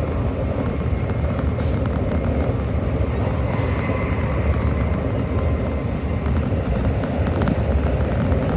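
Amtrak Acela Express train running at high speed, heard from inside the passenger car: a steady rumble of the train on the rails with rushing air. A faint whine comes in briefly about four seconds in.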